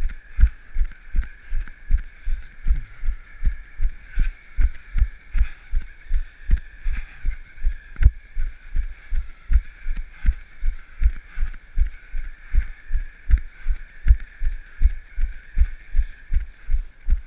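Running footfalls on pavement: low, even thumps about three a second at a steady running pace, jolting the carried camera, over a steady high hiss.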